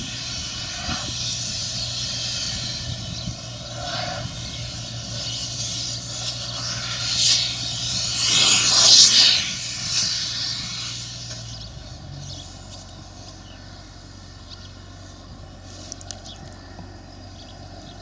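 Farm vehicle engine running with a steady low hum, while a rushing noise swells to its loudest around the middle and fades away. About two thirds of the way through, the engine note drops to a lower, quieter hum.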